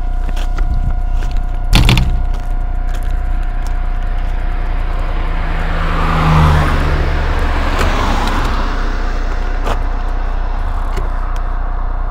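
Steady rumble of an electric-assist bicycle ride over a rough footpath. There is a sharp knock about two seconds in and a broad swell of noise around the middle.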